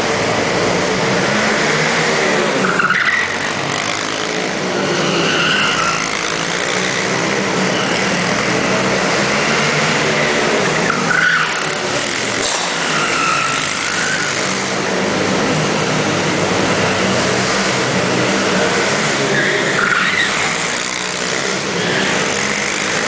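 Several small dirt-bike engines running together, their pitch rising and falling as the riders rev and ease off around the course.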